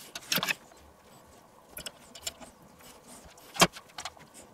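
Scattered light clicks and taps of hands working a needle and twine on a spitted duck in a metal roasting tray, with one sharper click about three and a half seconds in.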